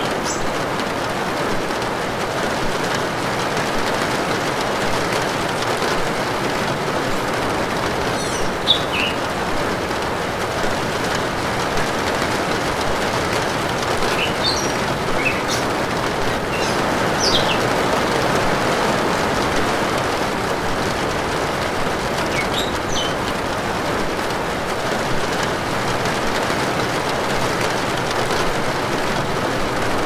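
Steady rain falling on corrugated metal roofing, with a few short bird chirps scattered through it.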